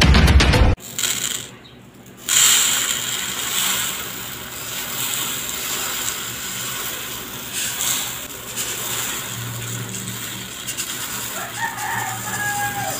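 Intro music cuts off about a second in. Then dry, uncooked white rice is poured from a bowl onto a heap on a wooden board: a steady rushing hiss of falling grains, with a brief lull shortly after the start.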